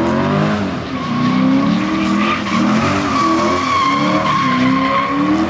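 A car's engine revving up and down while its tires squeal as it slides and spins its wheels, with a long, steady squeal through the middle.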